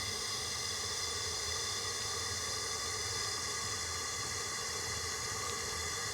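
Steady background hiss with a faint hum; no distinct sound event.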